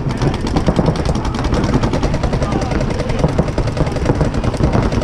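Several electronic paintball markers firing rapid, overlapping streams of shots during a speedball point.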